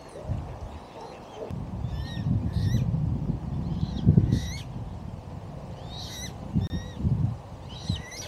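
Birds calling from the lake: clusters of short, high chirping notes repeated several times. Gusts of wind buffet the microphone underneath, as low rumbling.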